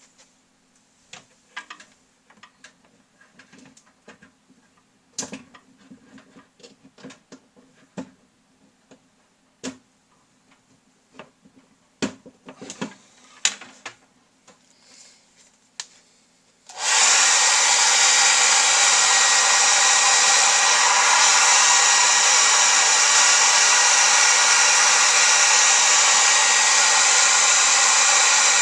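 Scattered faint clicks and taps, then a Revlon 1600 hair dryer switches on abruptly past the halfway point and runs with a loud, steady rush. It is being used to warm the receiver as a temporary fix for its capacitor-related no-sound fault.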